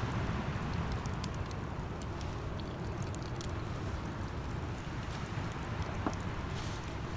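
Wood bonfire crackling, scattered small pops and ticks, over a steady low rumble of wind.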